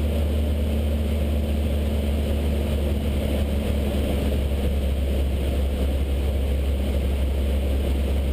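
Cessna 152's four-cylinder Lycoming O-235 engine and propeller droning steadily in flight, heard inside the cabin.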